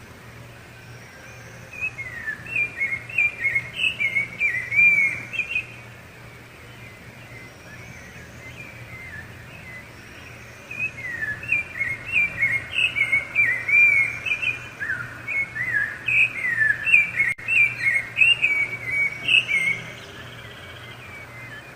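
Rufous-bellied thrush (sabiá-laranjeira) singing in two bouts of quick, varied whistled phrases. The first starts about two seconds in and lasts three to four seconds; the second starts about halfway through and runs some nine seconds.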